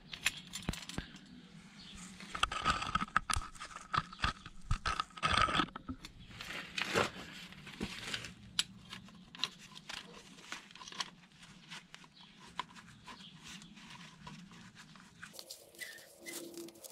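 Irregular clicks, knocks and clattering of parts or hand tools being handled, with a faint steady hum behind that shifts to a higher pitch near the end.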